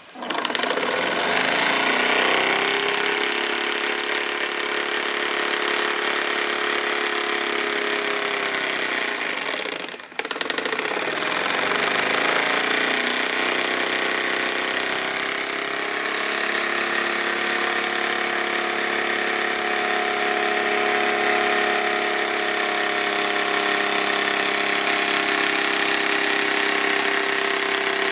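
Wilesco D18 toy steam engine starting abruptly and running fast: a steady, rapid hiss and clatter of exhaust steam and moving parts, with a tone that rises a little as it gets up to speed. The sound dips briefly about ten seconds in, then runs on steadily.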